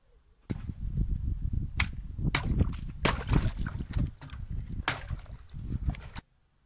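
A hand stirring broken ice in a galvanized metal bucket of water: water sloshing, with ice chunks knocking and clinking against the bucket again and again. It starts suddenly about half a second in and cuts off near the end.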